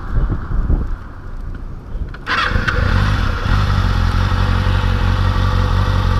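Motorcycle engine running unevenly at low level, then suddenly much louder a little over two seconds in and holding steady.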